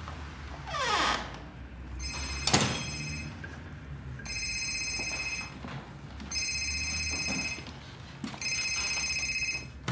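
A telephone ringing with an electronic trill, four rings of a little over a second each with short gaps between them. A loud thump comes about two and a half seconds in, during the first ring, just after a short falling sweep.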